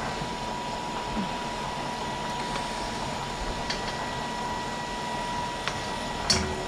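Steady whirring hiss of a cooker hood fan and a pot of boiling water on a gas stove, with a faint high whine that fades out about five and a half seconds in. A few light ticks of a metal slotted spoon against the wok, and one sharper clink near the end.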